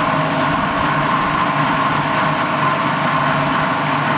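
Food processor motor running steadily, puréeing cooked chicken livers and olive oil into pâté.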